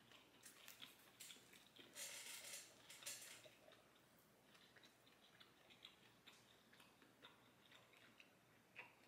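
Faint chewing of a pan-seared chicken pot sticker: soft, scattered mouth clicks and smacks, with two brief louder noises about two and three seconds in.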